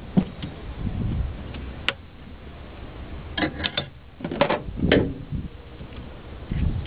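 Light clicks and knocks of hand work on an engine's upper intake plenum, as parts, hoses and fasteners are fitted by hand. There is a single sharp click about two seconds in, then two clusters of quick clicks about three and a half and four and a half seconds in.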